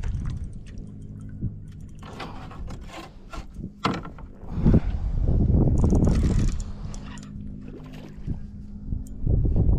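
Wind gusting on the microphone, loudest about halfway through, over a steady low hum from the small boat's motor.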